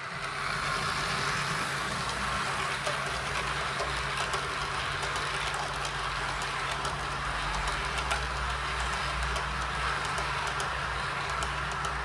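Model freight train of tank wagons rolling along model railway track: a steady rolling rush of wheels on rail with scattered small clicks and a low steady hum.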